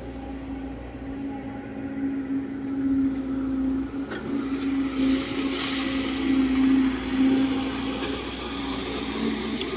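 An engine running steadily with an even hum. From about four seconds in, a louder noisy layer joins it and peaks a few seconds later.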